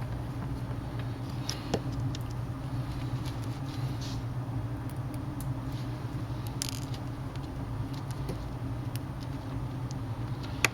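Steady low hum with faint, scattered clicks and ticks of a small screwdriver and screws being driven into a tablet's frame.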